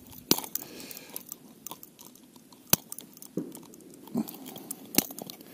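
Handling noises from unhooking a pike: scattered sharp clicks and small knocks as a hard plastic wobbler and its treble hooks are worked free of the fish's jaw. Three clicks stand out, shortly after the start, near the middle and near the end.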